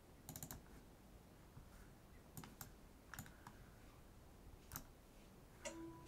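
Faint clicks from operating a computer: a quick cluster about a third of a second in, then single clicks scattered through the rest, with a brief short tone just before the end.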